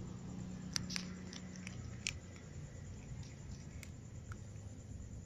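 Cats eating dry kibble: a handful of sharp crunches as the pellets are bitten, most of them in the first two seconds, with fewer after.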